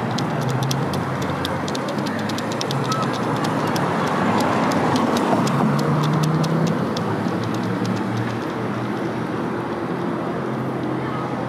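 City street noise: a steady rumble of passing traffic that swells in the middle, with a rapid run of sharp clicks through the first half.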